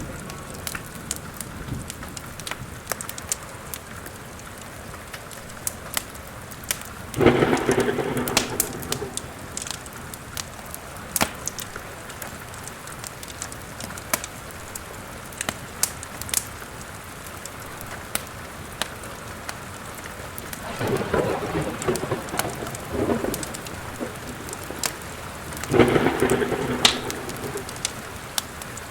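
Steady rain with three rolls of thunder, about seven, twenty-one and twenty-six seconds in, over the sharp crackle and pops of a fireplace fire.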